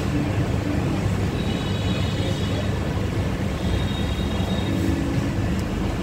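Steady rumble of street traffic, engines running by.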